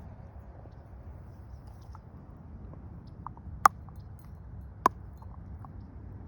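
Two sharp clicks about a second apart, with a few fainter ticks, over a steady low rumble.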